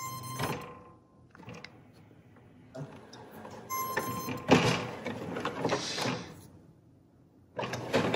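HP OfficeJet Pro 9015 inkjet printer running its start-up check after new ink cartridges go in: a short electronic beep at the start and another about three and a half seconds in, each followed by whirring and clattering from the print mechanism. The mechanical noise is loudest from about four to six and a half seconds in, and starts up again near the end.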